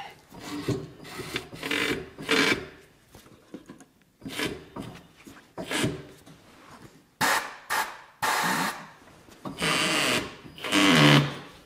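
Rubber tyre bead rubbing and scraping against an alloy rim on a tyre-changing machine as a low-profile tyre is worked onto the rim, in a series of uneven scraping strokes, louder in the second half, with a short squeak near the end.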